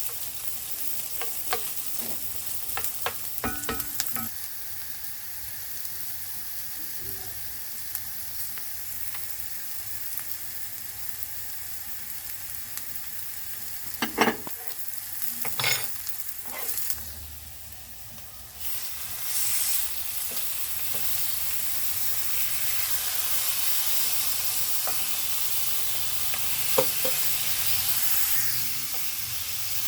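Food sizzling in hot oil in a frying pan, with a spoon knocking and scraping against the pan in the first few seconds and again around the middle. About 18 s in the sizzle drops briefly, then comes back louder.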